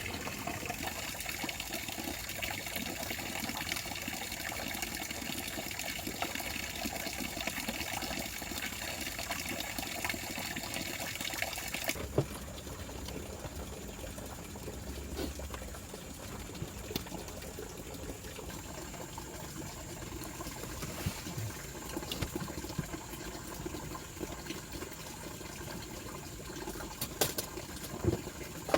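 Steady rushing of flowing water, with a sudden slight drop in level about twelve seconds in and a few sharp clicks near the end.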